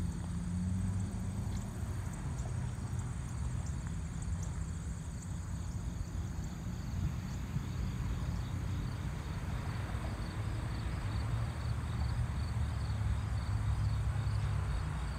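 Low wind rumble on the microphone, with insects trilling faintly and steadily in the background.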